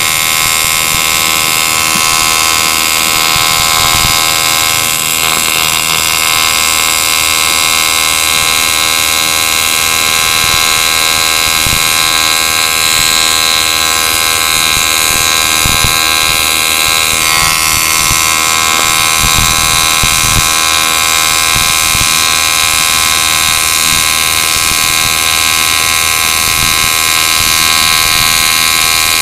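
AC/DC TIG welder (Topgun 215E) running an AC arc along aluminium: a loud, steady electric buzz with a hiss over it, held without a break through a long weld bead.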